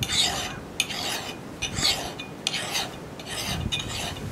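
Flat axe file rasping across the steel cheek of a Council Tool boys axe head, pushed in one direction only, about seven strokes a couple of seconds apart in total, each a short scrape.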